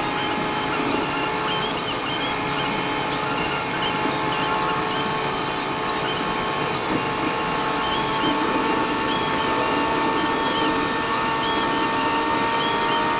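A vehicle's engine and drivetrain whine, steady tones rising slowly in pitch over constant rumbling road noise.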